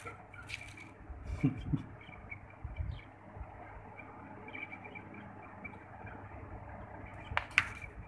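A budgerigar picking through seed in a plastic cage feeder: small scattered clicks and rustles, with a few short louder scuffs, the loudest near the end.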